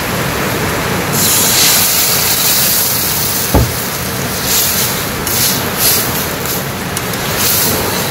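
Boiled lentils (dal) poured into a wok of hot oil and fried onions, hissing and sizzling loudly from about a second in, the sizzle surging again in short rushes as it is stirred with a metal spatula. A single short knock about halfway through.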